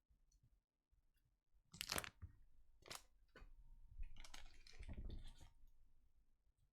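Faint crinkling and clicking of trading cards and pack wrappers being handled, with a sharper crackle about two seconds in and a longer rustle near the middle.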